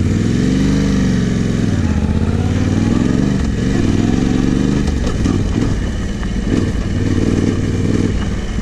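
Yamaha Ténéré 700's 689 cc parallel-twin engine under way on dirt, its pitch climbing and falling several times as the throttle is opened and closed.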